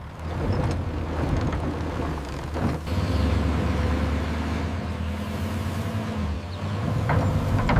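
Engine of a heavy digging machine running steadily while it dumps a bucket load, with a few short knocks about three seconds in and again near the end.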